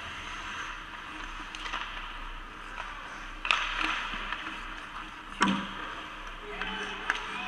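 Live ice hockey play: skate blades scraping and carving the ice with a steady hiss. Two sharp loud impacts about three and a half and five and a half seconds in, with a few lighter clacks of sticks and puck.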